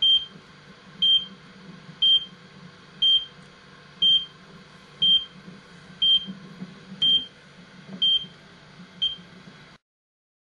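GPS-ABC time-base giving a short high beep once a second, about ten beeps in all. These are the one-second time markers for timing a lunar graze occultation. A faint low hum runs under them, and the sound cuts off near the end.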